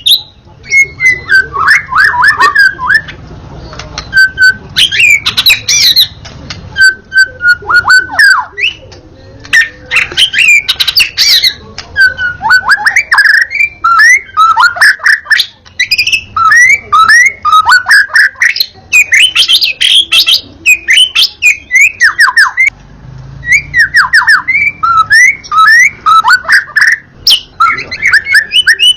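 White-rumped shama singing nonstop in quick, varied phrases of downward-sliding whistles mixed with sharp, clicking notes.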